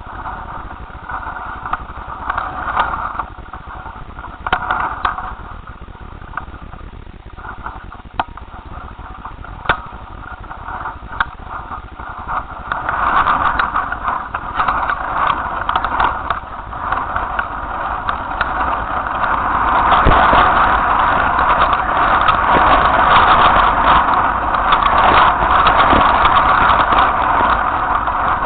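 Strong wind buffeting the microphone of a kite-borne camera, with scattered clicks and knocks of the rig. The rushing grows louder about halfway through as the gusts strengthen.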